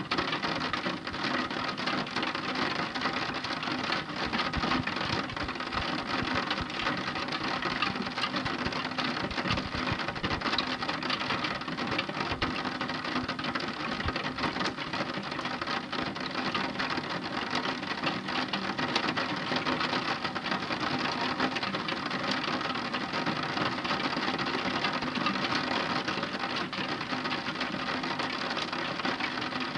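Heavy rain falling steadily, a dense even patter of drops, with a few low thuds in the middle.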